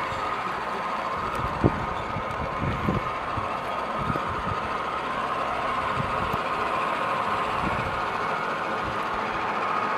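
G-scale model trains running past on garden track: a steady running hum with a few short clicks, the sharpest about a second and a half in.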